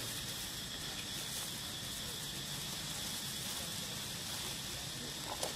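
Outdoor ambience: a steady high insect drone over a low, even rumble, with one faint tap near the end.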